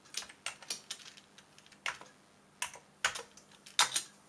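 Keys clicking on the Schneider Euro-PC's built-in keyboard as a short calculation is typed, about ten keystrokes at an uneven pace. The loudest strokes fall near the end.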